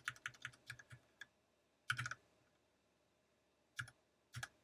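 Quiet keystrokes on a computer keyboard as numbers are typed into spreadsheet cells: a quick run of keystrokes in the first second or so, a short cluster about two seconds in, and two single keystrokes near the end.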